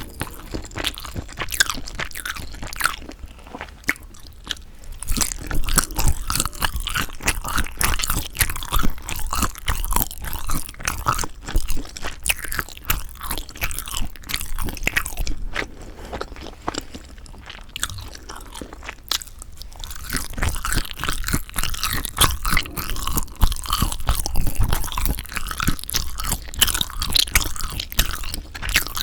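Close-miked chewing of sundae (Korean blood sausage): a steady stream of wet, sticky mouth clicks and crackles as the pieces are bitten and chewed.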